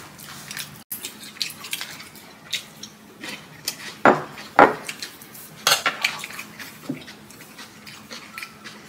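Metal chopsticks and spoons clinking against ceramic bowls while eating: scattered light clinks, the two loudest about four and four and a half seconds in.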